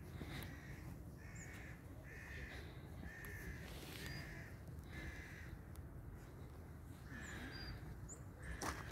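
A bird cawing, about six calls roughly a second apart, then one more after a pause, with faint high chirps of small birds. A sharp click near the end.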